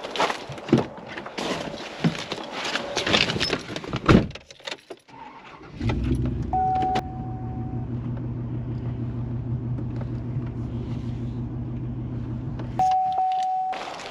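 Clicks and rattling, then a truck engine starts about six seconds in and idles steadily, with a short dashboard chime just after it catches. The engine is switched off near the end, and another short chime follows.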